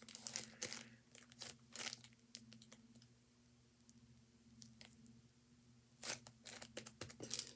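Plastic zip-top bag filled with shaving foam crinkling and rustling as it is pressed to squeeze the air out. There are bursts of crinkles for the first two seconds or so, a quieter gap, then more from about six seconds in, over a faint steady hum.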